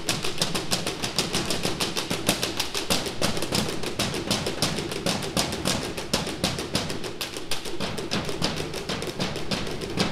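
School band music with dense, rapid percussive clicking over sustained lower tones.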